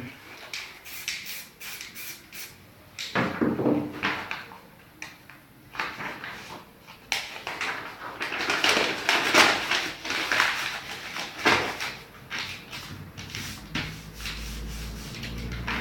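A sheet of paper being handled and crumpled by hand, rustling and crackling in irregular bursts, densest and loudest a little past halfway. A low hum comes in near the end.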